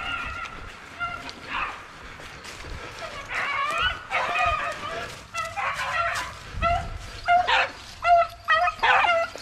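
Rabbit-hunting dogs barking and yipping in short repeated calls, which come faster near the end.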